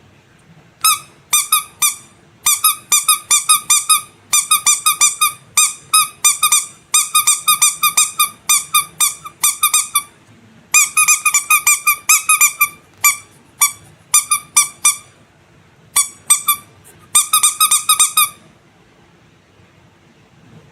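Squeaky rubber animal toy squeezed over and over, giving rapid runs of short same-pitched squeaks in quick clusters that stop near the end.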